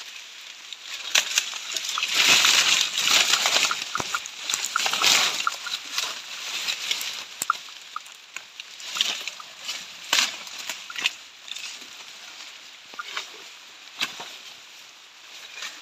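Leaves and bamboo stalks rustling and crackling in irregular bursts, with sharp snaps here and there. The bursts are loudest in the first few seconds and sparser after.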